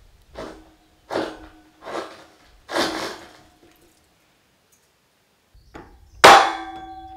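Hammer blows on a steel I-beam being knocked into level: four lighter knocks in the first three seconds, then a hard strike near the end that leaves the beam ringing.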